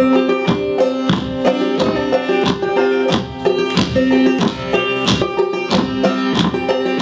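Acoustic string band playing: banjo, mandolin, acoustic guitar and upright bass plucked together, with strong attacks about twice a second.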